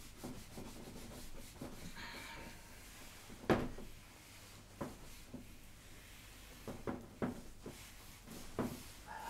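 Light rubbing and handling noise with a few soft knocks, the sharpest about three and a half seconds in.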